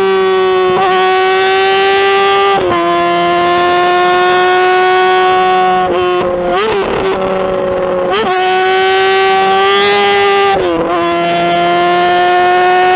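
Motorcycle engine running at high revs, its pitch held nearly steady, with about five brief dips in pitch.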